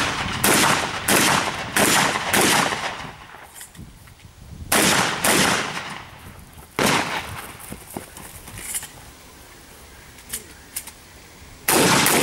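Pistol shots fired in strings during a practical shooting stage: four fast shots, a pause, a pair, a single shot, then another fast string starting near the end.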